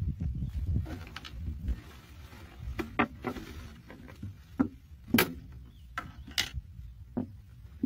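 Thin plastic bottle crackling and clicking as fingers press and bend its cut funnel flaps: a handful of sharp clicks at uneven intervals. A low rumble fills the first two seconds.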